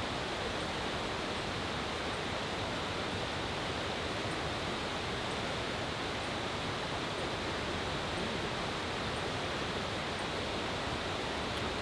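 Steady rush of a river running over rocks, an even hiss, with faint high ticks about once or twice a second.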